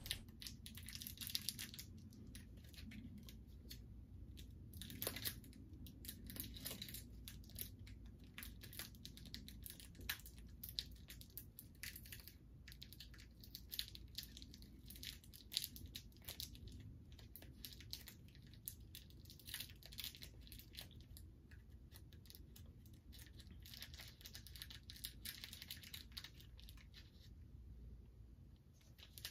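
A candy-bar wrapper being torn and crinkled open by hand: faint, irregular crackling and tearing, with denser bursts about five seconds in and again near the end.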